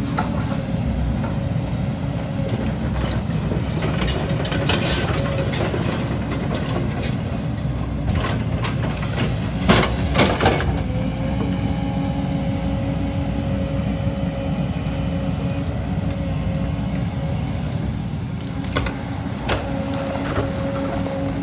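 Excavator's diesel engine running steadily with a steady whine over its low rumble, and a few sharp knocks about ten seconds in.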